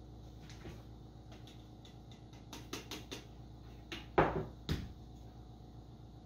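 Light clicks and taps from handling a small grinder and a glass jar, then two louder knocks a little past four seconds in as the grinder is held over the jar to empty the ground bouillon powder into it. The grinder's motor is not running.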